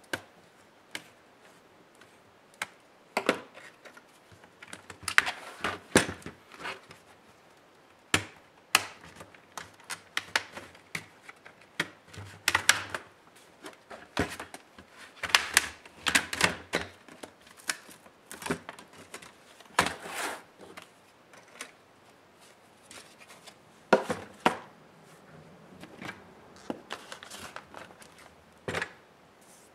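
Irregular plastic clicks, snaps and knocks from an Acer Spin 1 laptop's plastic case as it is pried open, turned over and handled on a work surface.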